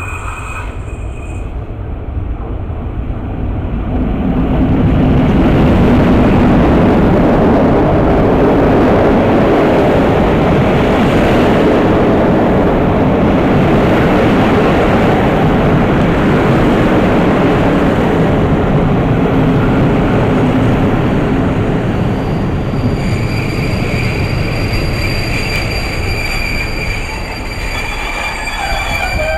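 Passenger train passing close by, its wheels rumbling on the rails. The rumble swells over the first few seconds and stays loud and steady, then eases near the end as a high steady whine comes in.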